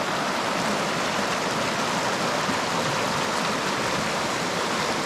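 A fast mountain river running strong over rocks: a steady, even rush of water.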